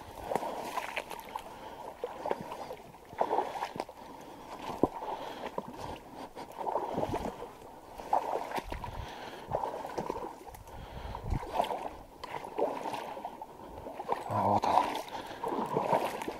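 Marsh water sloshing and splashing in irregular surges about once a second, with rustling and small knocks, as someone moves through it.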